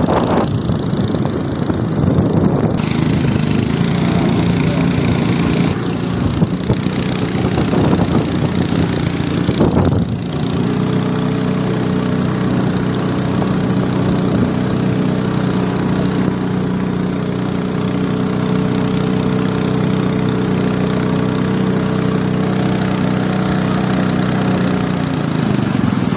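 Small boat engine running, uneven for the first ten seconds or so, then holding one steady pitch.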